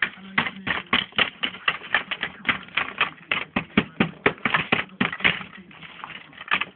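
Plaster investment being chipped and broken away from a lost-wax brass casting: a quick, irregular run of sharp clicks and knocks as the chunks crack and clatter in the tray, with a faint steady hum underneath.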